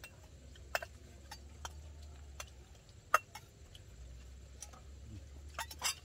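Eating utensils clicking against plates and bowls as people eat: scattered sharp clicks, the loudest about three seconds in and a quick run of them near the end.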